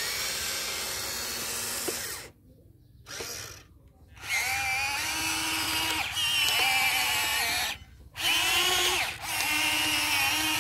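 The small electric motors and gearboxes of an RC Volvo excavator, whining as it works, starting and stopping about five times in short runs with a whine that wavers in pitch.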